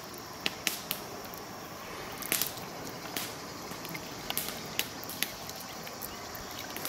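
Knife cutting a raw trout fillet on a wooden cutting board, with irregular faint clicks and ticks as the blade works, over a steady faint hiss.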